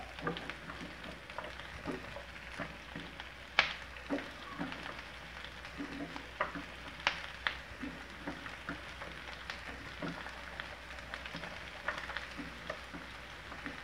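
Sliced shallots, garlic and onion rings sizzling in hot oil in a frying pan, with frequent sharp pops and clicks as a spatula stirs them.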